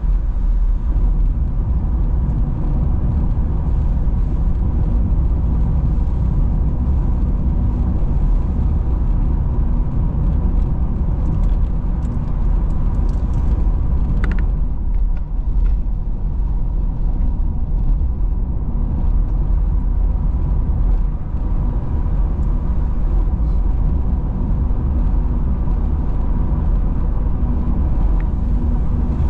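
A car driving along a road: a steady low rumble of engine and tyre noise, with a brief tick about fourteen seconds in.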